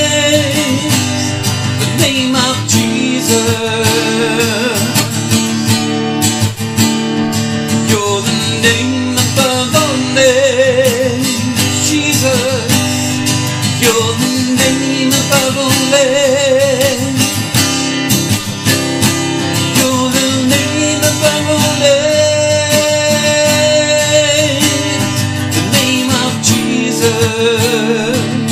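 Worship-song music: acoustic guitar strumming steadily, with a wavering melody line over it and no words.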